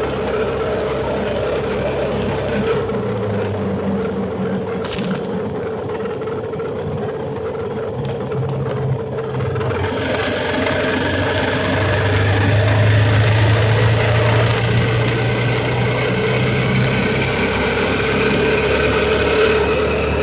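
Motorized bicycle's small engine running steadily under way, with rattle. A faint whine climbs gradually in pitch through the second half.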